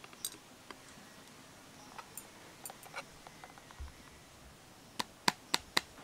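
Light clicks and knocks of a plate and a pudding bowl being handled to turn out a set pudding, with a soft thump past the middle and then four quick sharp taps about five seconds in.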